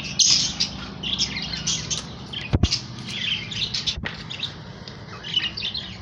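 Caged pet birds chirping in short repeated tweets over a low steady hum, with a single dull bump about two and a half seconds in.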